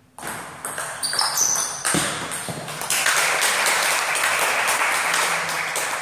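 Table tennis rally: the celluloid ball clicks sharply off the paddles and table for a few strokes. About three seconds in, when the point ends, it gives way to a burst of applause from the small crowd.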